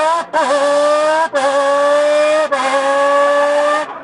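Imitation of a car engine accelerating through the gears: a buzzy, whistle-like tone that rises gently in pitch, breaking off briefly four times and dipping before climbing again, like gear changes.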